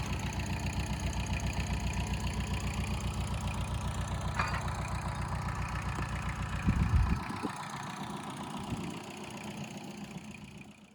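Farm machine's engine running with a steady rapid pulse; about two-thirds of the way through there is a loud clunk and the engine stops, leaving fainter noise that fades away.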